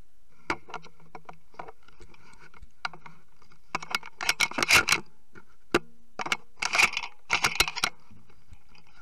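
Rustling, scraping and clicking handling noise close to the microphone, in two dense bursts about four and seven seconds in with a few single clicks before, as a downed mourning dove is picked up.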